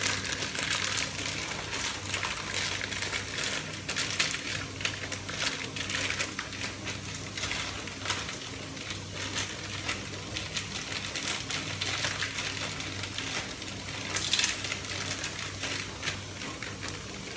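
Raisins going into a pan of cooking menudo: rapid, irregular small clicks and crackles over a steady low hum.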